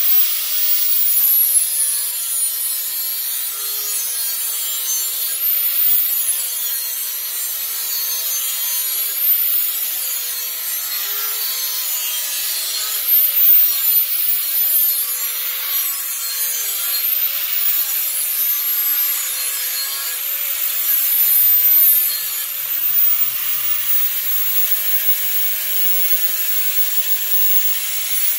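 Parkside angle grinder grinding the edge of a steel hoe head. Its high whine dips in pitch and recovers every few seconds, with a steady rushing grind.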